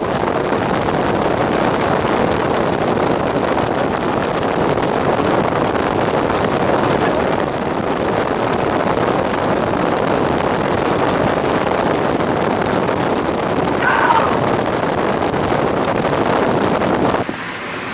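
Steady rushing noise of wind and a vehicle driving at speed. It cuts off suddenly near the end.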